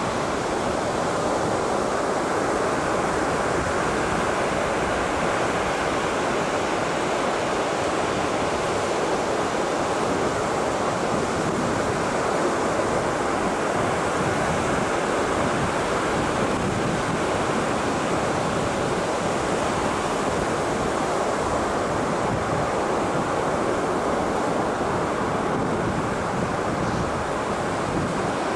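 Ocean surf washing onto a beach: a steady, continuous rush of waves without distinct breaks.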